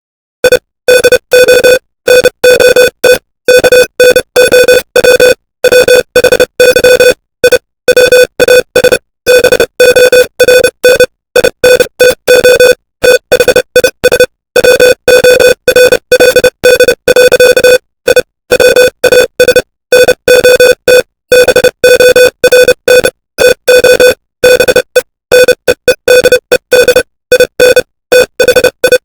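Morse code sounded as a steady mid-pitched electronic tone, keyed on and off in short and long beeps with brief silent gaps between them.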